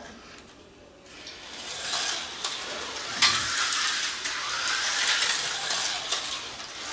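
Vintage HO-scale Tyco slot cars running on a plastic track: small electric motors whirring and the cars rattling and clicking through the lanes, starting up about a second in and running steadily. A sharp knock about three seconds in.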